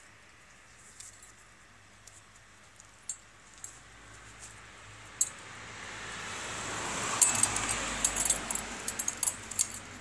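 Small clicks and clinks of a motorcycle headlight bulb and its plastic wiring connectors being handled, scattered at first and coming thick and fast near the end. A rushing noise swells through the second half and eases just before the end.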